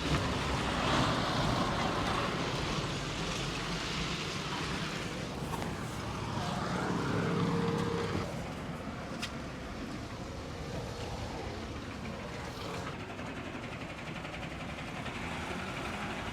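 Street traffic: vehicles going by, a rushing noise that swells and fades, with one louder pass about six to eight seconds in that carries an engine hum. A single sharp click comes a little after nine seconds.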